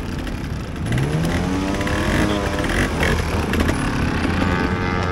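Trials motorcycle engine revved in several quick blips, each rising and falling in pitch, starting about a second in and settling to a steadier run near the end.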